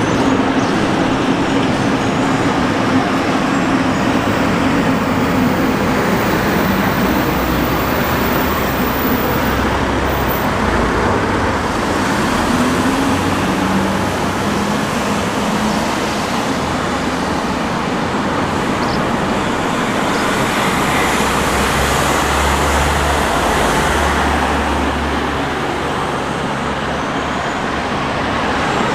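Steady road traffic noise, with a deeper rumble from a heavier vehicle swelling about two-thirds of the way through.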